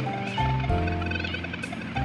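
Background music with steady held notes and a bass line.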